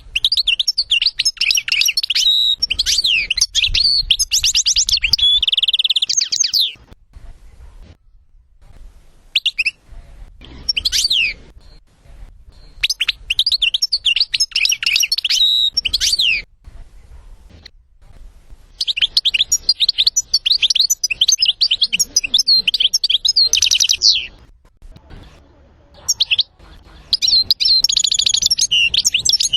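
European goldfinch singing: phrases of rapid, twittering and tinkling notes lasting several seconds each, with short pauses between them.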